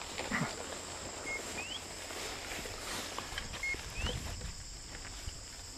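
Crickets and other field insects trilling steadily in tall grass, with a two-part chirp that repeats about every two seconds: a short flat note, then a quick rising whistle. Soft rustling footsteps through the tall cover.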